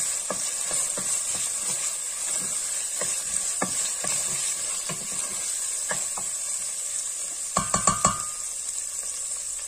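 Diced bacon, onion and tomato paste sizzling in hot fat in a stainless steel pot while a wooden spoon stirs and scrapes through it. The tomato paste is being fried down until it separates from the fat. Near the end comes a quick clatter of knocks, the spoon hitting the pot.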